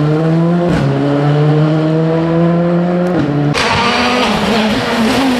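Rally car engine accelerating hard, its pitch climbing steadily with upshifts about a second in and again about three seconds in. Just after the second shift the sound switches abruptly to a different, hissier engine sound of another car.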